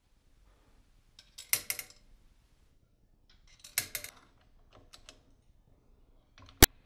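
Small hard parts clicking and clinking as they are handled, in three short clusters of sharp clicks, with one single sharp click near the end.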